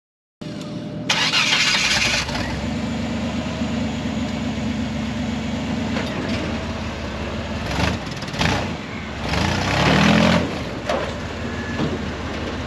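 A buggy's engine running, with a loud burst about a second in and the revs rising around ten seconds in.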